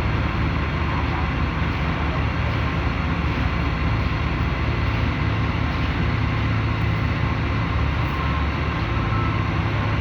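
Heavy diesel truck engine running steadily, a constant low drone with no changes in speed.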